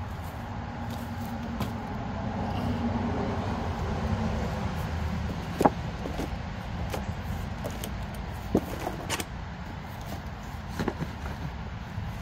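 Scraping and handling noise from cleaning out a chicken coop by hand, with scattered sharp knocks, the loudest about halfway through, over a steady low rumble.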